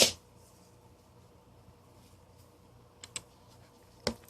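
Small plastic and metal fan parts being handled on a table: a sharp knock, then quiet, two light clicks about three seconds in, and another knock just after four seconds.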